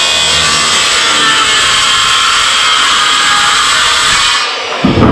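Power tool cutting into wood boards: a loud, steady cutting noise that stops about four and a half seconds in, followed by a short thump.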